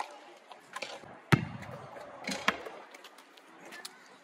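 A basketball bouncing on an outdoor court: a few scattered thuds, the loudest a little over a second in, then two lighter bounces.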